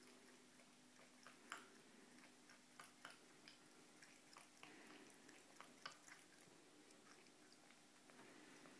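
Scottish Fold cat lapping water from a sink basin: faint, irregular wet clicks from its tongue, over a low steady hum.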